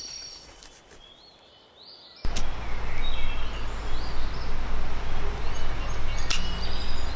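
Outdoor ambience with small birds chirping. About two seconds in, a loud, steady rushing noise with a deep rumble sets in. There is a single sharp click near the end.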